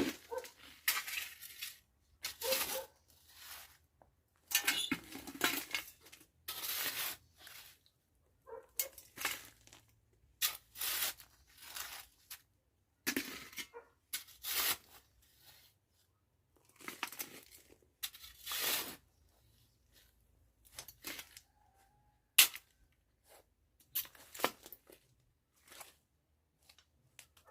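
Demolition work: repeated irregular tearing and crunching as material is pulled apart, in short bursts with pauses between them.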